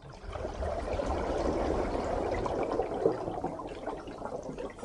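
Rushing, pouring water noise that comes in at once and slowly fades away.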